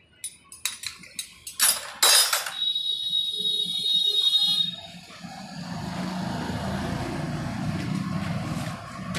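A few sharp metallic clicks and a clatter, then a high whine for about two seconds, then a small motorcycle engine running steadily from about five and a half seconds in.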